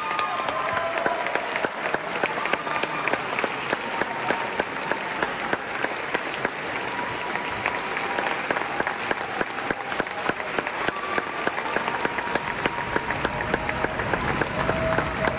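Large audience applauding steadily, many hands clapping at once, after an orchestral performance.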